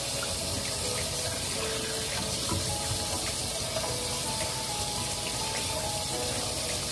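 Kitchen faucet running steadily into a stainless steel sink, the stream splashing over raw chicken as it is rinsed and turned by hand.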